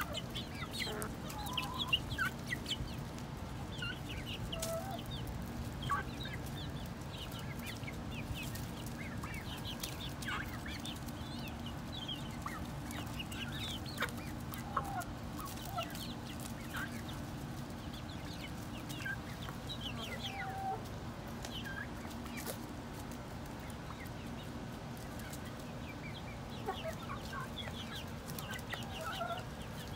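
A flock of 11-week-old chickens (Australorps, Barred Rocks, White Crested Black Polish and Silkies) foraging, giving many short high peeps and soft clucks scattered throughout. A few faint ticks and a steady low hum lie underneath.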